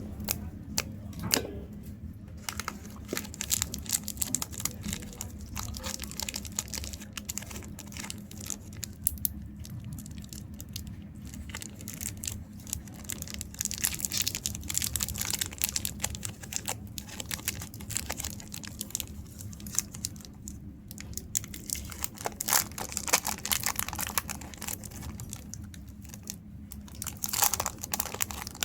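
Chocolate wrappers being crinkled and torn open, a run of irregular crackles and rustles, busier in stretches, over a steady low hum.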